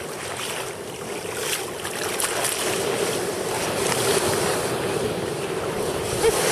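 Rough sea churning and breaking around a sea kayak, with water rushing along the hull and a few brief splashes in the first half. Wind buffets the microphone.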